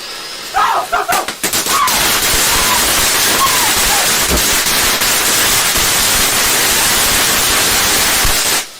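A firework going off with a loud, dense spray of hissing and rapid crackling that starts about a second and a half in, holds steady for about seven seconds, then cuts off suddenly.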